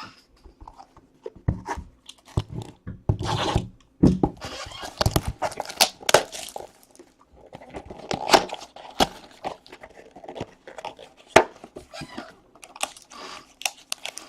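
Trading-card packaging being torn open and handled: crinkling and tearing of wrappers and cardboard, with scattered sharp clicks and knocks of cards and boxes.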